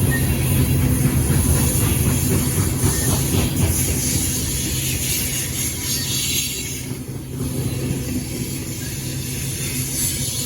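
A train rolling along the track: a steady low rumble with the wheels clicking over the rail joints, easing off a little about seven seconds in.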